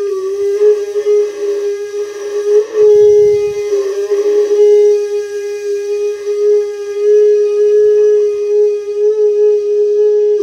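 Shankh (conch shell) blown in a long, steady, horn-like note, wavering briefly a few times as the player's breath shifts, as part of a Hindu puja.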